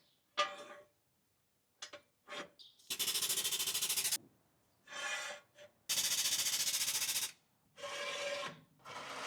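Mechanical rasping in bursts, like a power tool in a repair shop: two runs of about a second each with a fast, even rattle, between shorter scrapes and clicks.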